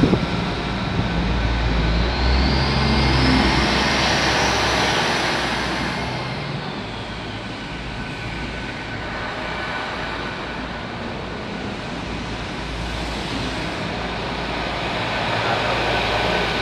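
Hitachi Class 800 train passing through at speed right beside the platform: a steady rush of wheels on rail and air with faint high tones running through it.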